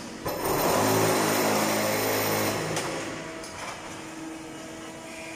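Concrete block machine running: a loud buzzing burst with a low hum, starting a fraction of a second in and dying away about halfway through, then a quieter steady machine hum.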